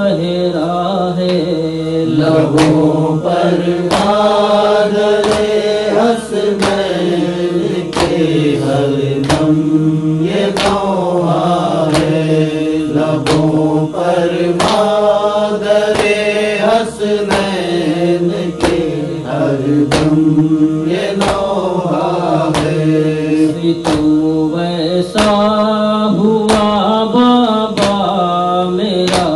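Male voice chanting a noha (Urdu lament) melody over a steady held vocal drone. Sharp percussive beats come a little faster than once a second.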